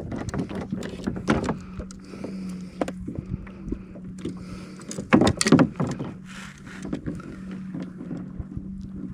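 Knocks and clatter of a just-caught red grouper and gear being handled on a kayak, the loudest bunch of knocks about five seconds in, over a steady low hum.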